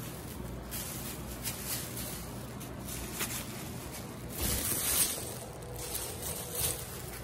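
Plastic blister packs and school supplies being handled, with scattered crinkles and rustles that bunch together about four and a half seconds in, over a low steady hum.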